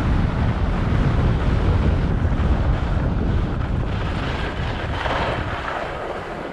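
Wind buffeting the microphone: a loud, low rumbling rush that eases off over the last couple of seconds.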